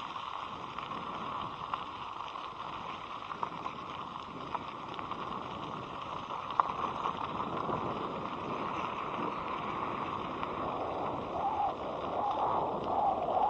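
Wind and road noise from riding a Midway Amix Pro electric scooter, a steady hiss with a few sharp clicks along the way. A few short wavering tones come in near the end.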